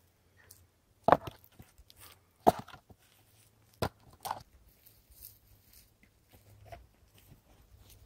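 Freshly cut pine rounds being picked up and moved by hand. There are four sharp wooden knocks, about a second apart in the first half, with light scuffing in sawdust and dry pine needles in between.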